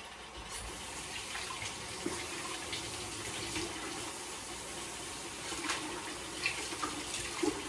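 Chicken pieces frying in a wok with garlic and onion: a steady sizzle with scattered small pops and crackles.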